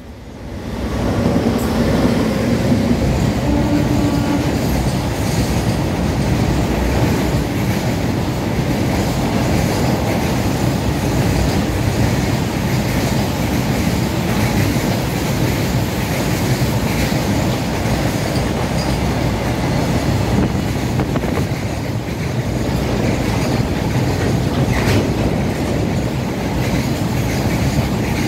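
Freight train hauled by a WAG9HC electric locomotive passing close by: a loud, steady rumble and clatter of its wheels and wagons on the rails.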